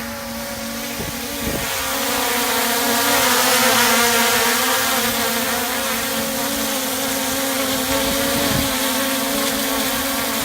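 A motor or engine running steadily, a constant pitched drone with no change in speed.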